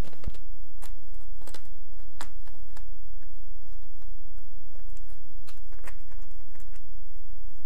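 White carbon-fibre vinyl wrap film crackling and rustling as it is handled, peeled back and pressed down, in scattered short crackles and clicks at irregular intervals. A low steady hum runs underneath.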